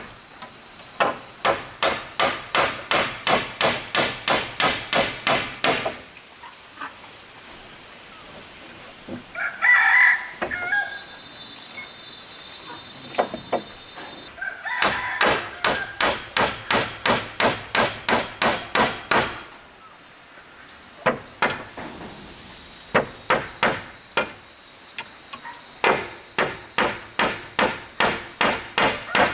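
Runs of quick hammer blows on wood, about three strikes a second, broken by pauses. A rooster crows once, about ten seconds in.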